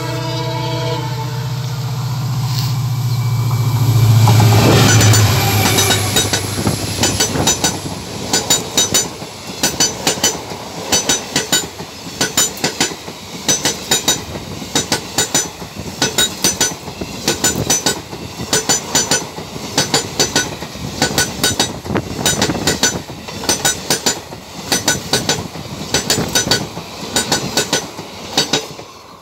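Indian Railways passenger train passing close by at speed: the locomotive's horn sounds and stops about a second in, the locomotive's rumble peaks as it goes by around four seconds in, then the coach wheels clatter over the rail joints in quick groups of clicks about once a second.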